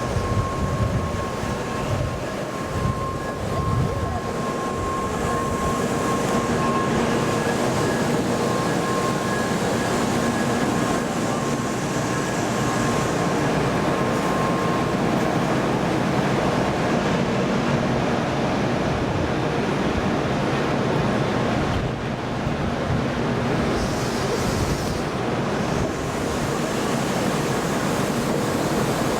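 N700A Shinkansen train running, a steady rumble with thin steady whining tones over it.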